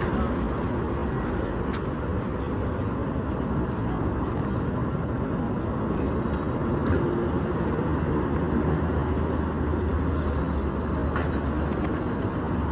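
Steady road traffic noise: a continuous rumble of vehicles, with a low engine hum that grows stronger in the middle.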